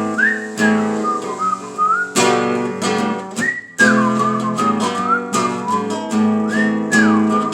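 Acoustic guitar strummed in a steady rhythm with a whistled melody over it, sliding between notes; the strumming breaks off briefly about three and a half seconds in.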